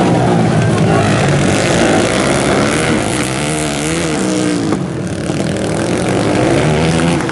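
Several dirt-track racing motorcycles at full throttle, their engines rising and falling in pitch as the riders roll on and off the throttle through the course.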